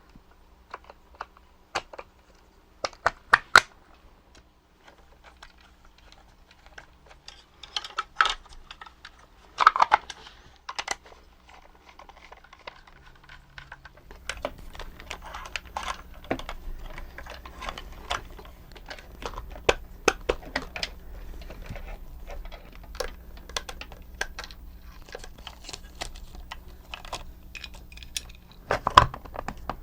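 Irregular clicks, taps and light clatter of small hard plastic parts and tools being handled on a workbench. About halfway in, a faint steady low hum joins underneath.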